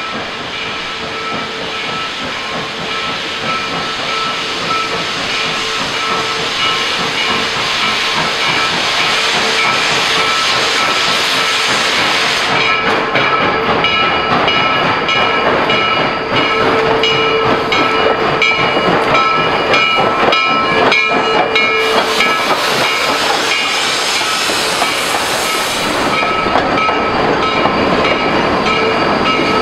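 Steam locomotive arriving at a station: a loud, steady hiss of steam that grows louder over the first dozen seconds. After that the engine and its cars roll past with a run of clicks and clatter, and steady ringing tones run through the sound.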